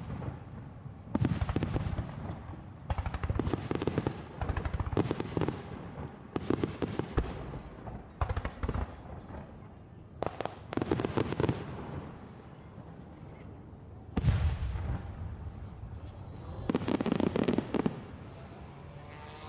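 Aerial fireworks bursting in rapid crackling volleys, a new cluster of reports every one to three seconds, the loudest about fourteen seconds in. A thin, steady high trill, like insects, runs underneath.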